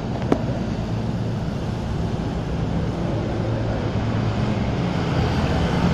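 Steady low engine rumble, with a single sharp click about a third of a second in.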